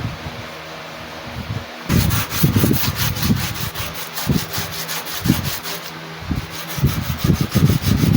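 Abrasive sanding of a rusty steel knife blade for rust removal, in rapid back-and-forth strokes that start about two seconds in, pause briefly near the end and resume.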